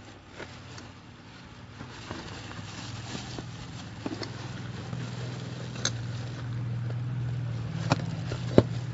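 Plastic wrapping and a cardboard box being handled during unboxing: crinkling with scattered sharp clicks and taps, two louder ones near the end. Underneath, a steady low hum builds and grows louder.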